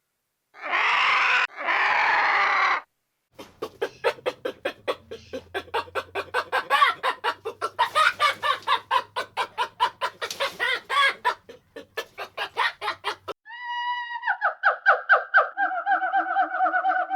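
Chickens clucking in a rapid run of short pitched calls for about ten seconds, after two short harsh noisy sounds near the start. Near the end a long high pitched call with a fast flutter takes over.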